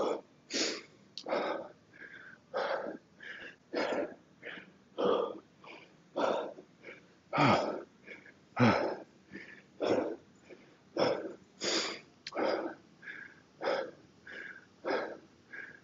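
A man breathing hard and fast, winded after a set of heavy 48 kg kettlebell swings: loud, rasping in-and-out breaths about once a second, two of them voiced and falling in pitch about halfway through.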